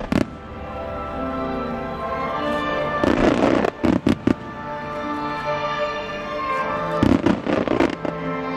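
Aerial fireworks shells bursting over music with steady held notes: a cluster of bangs and crackle about three seconds in and another about seven seconds in.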